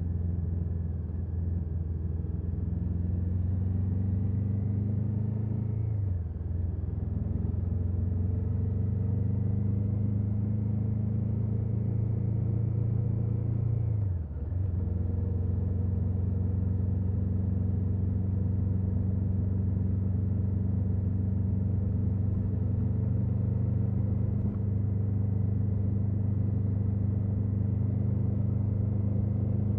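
KTM 1290 Super Adventure S's V-twin engine with its stock exhaust, running at a steady note. The pitch and volume dip briefly twice, about six seconds in and again about fourteen seconds in, each time settling back to a steady note.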